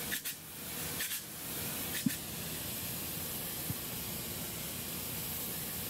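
High-pressure polyurea spray gun spraying a lining coat: a steady, even hiss, with a few faint ticks in the first couple of seconds.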